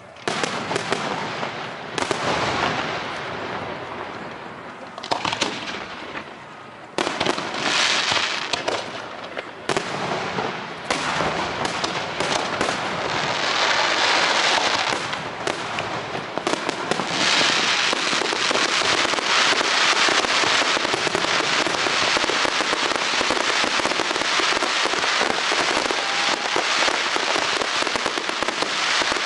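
Fireworks display: separate sharp bangs every few seconds, each trailing off in fizzing crackle, then from about halfway a dense, continuous barrage of crackling and rapid bangs.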